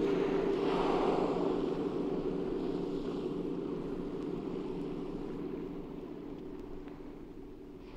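Dark ambient black metal outro: a sustained low drone of steady tones under a rushing, wind- and wave-like noise, fading out slowly.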